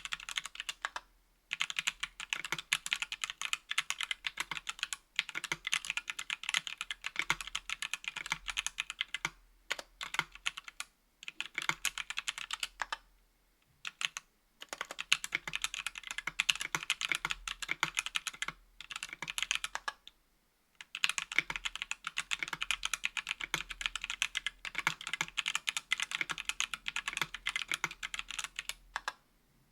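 Fast typing on a KBDfans Tofu60 aluminum 60% mechanical keyboard with an aluminum plate, stock Everglide Oreo tactile switches and GMK Jamon keycaps: rapid key clacks in runs of a few seconds broken by short pauses, stopping just before the end.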